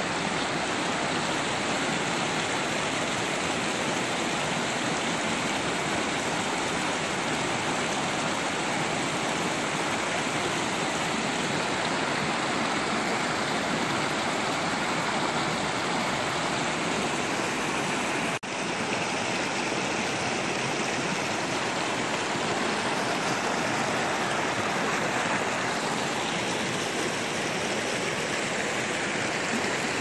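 Snowmelt creek rushing and splashing over rocks in a steady, even rush of water, with one brief dropout a little past halfway.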